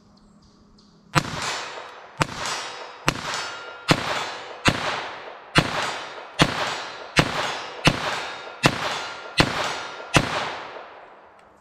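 A semi-automatic pistol firing Remington Golden Bullet .22 LR rounds, about a dozen shots at a steady pace of a little more than one a second, each shot echoing and fading before the next.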